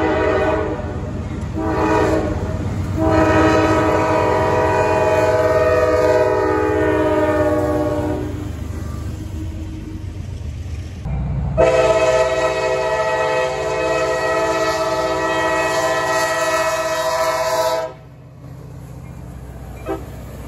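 Freight diesel locomotive's multi-chime air horn sounding over the low rumble of the train: a few short blasts, then a long one that fades out around 8 seconds. A second long blast starts about 11 seconds in and cuts off abruptly near 18 seconds, leaving the quieter rumble of rolling freight cars.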